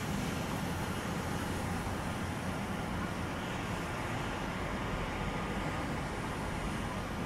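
Steady low rumble of outdoor city and river ambience, with engine and traffic noise, heard from a boat on the river.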